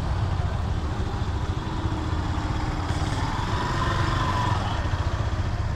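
Motorcycle engine running at low speed, a steady low rumble, with the revs rising a little about three seconds in.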